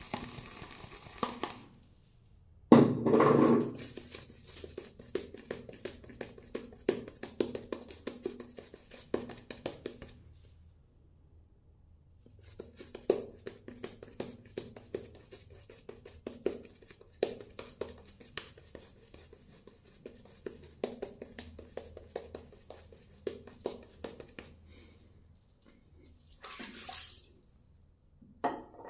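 Razor scraping through lathered beard stubble in short strokes, several a second, with a pause about ten seconds in. A brief louder rush about three seconds in.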